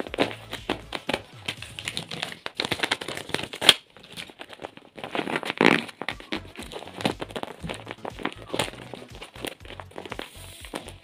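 Crinkling and crackling of a plastic-wrapped paper craft packet as it is squeezed, pressed flat and turned over by hand. The crackles come in a dense, uneven run, with louder bursts near the middle.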